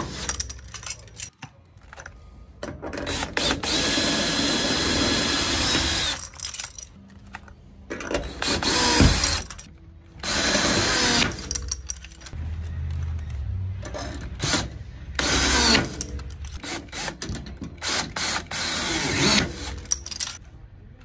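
Glue-pull dent puller being worked against a truck's quarter panel: its metal mechanism clicks and grinds in irregular bursts of a second or two, one running about three seconds.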